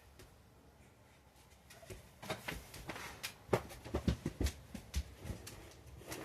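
Quiet room tone, then from about two seconds in a run of irregular knocks, clicks and rustling from objects being handled and moved about.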